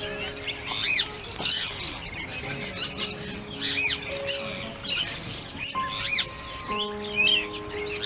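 Short, high, arching bird chirps repeating about once a second, over background music with long held notes.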